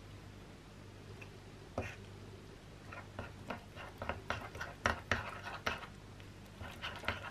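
Metal spoon stirring flour, butter and chopped apple in a ceramic ramekin, clinking and scraping against the bowl's sides: irregular clicks that start about two seconds in and come thickest in the middle.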